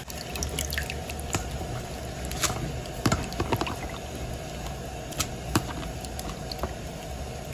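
Wet red onion skins being lifted out of a plastic tub of rinse water by hand and dropped into a stainless steel bowl: water dripping and pouring off them, with scattered small wet ticks and splashes over a steady low hum.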